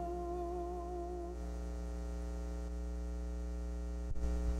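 The last held sung note of the song, with a slow vibrato, dies away about a second and a half in, leaving a steady electrical hum. A single click comes near the end, after which the hum is louder.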